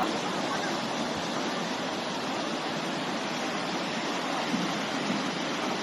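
Swollen river floodwater rushing steadily, a dense even noise of fast-flowing water.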